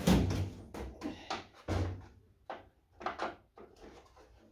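Metal tool chest drawer pulled open, then a run of clattering knocks and rattles as sockets in the drawer's tray are rummaged through, quieter near the end.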